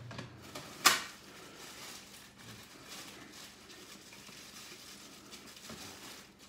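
A sharp plastic clack from a plastic bread-box lid about a second in, then the crinkling and rustling of a plastic bread bag being handled and opened.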